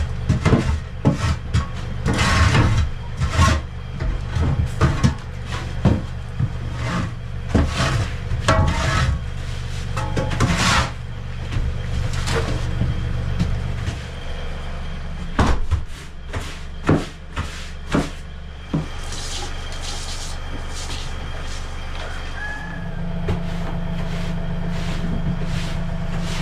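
Shovel and scraper scraping and knocking on a wooden coop floor as old straw bedding is cleared, a busy run of scrapes and knocks with a steady low hum underneath.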